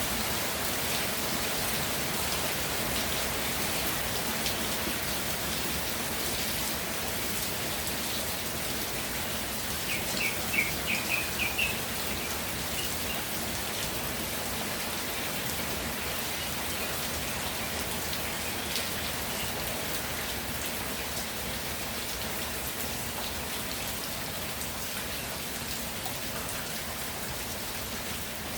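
Steady rainfall pattering on the ground. About ten seconds in, a short run of high chirps sounds over the rain for a couple of seconds.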